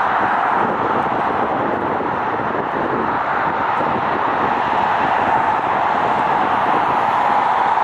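Gulfstream G280's twin rear-mounted turbofan jet engines running on the runway, heard from behind as a steady roar of jet noise that grows a little louder in the last few seconds, ahead of the take-off roll.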